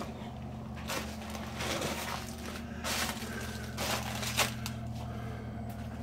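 Footsteps crunching and scraping over debris on a decayed floor, irregular steps about a second apart, over a steady low hum.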